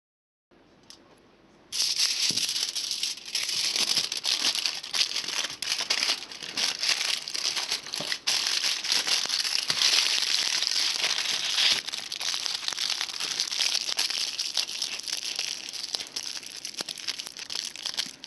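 Wood campfire crackling and hissing: a dense, continuous hiss full of sharp pops and snaps that starts suddenly about two seconds in and cuts off at the end.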